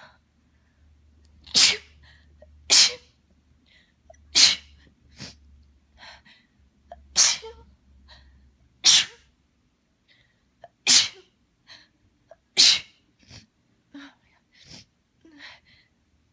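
A person's allergy sneezing fit: seven loud sneezes in quick, uneven succession over about eleven seconds.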